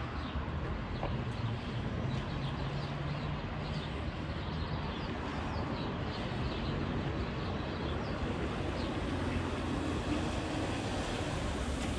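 Road traffic on a wet street: a steady mix of engine hum and tyre noise from a plow-equipped pickup and other vehicles driving through the intersection.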